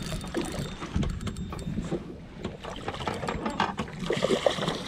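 A fishing reel clicking and whirring in quick, irregular runs as a hooked bull redfish is played to the boat. Near the end a splash comes from the fish thrashing at the surface.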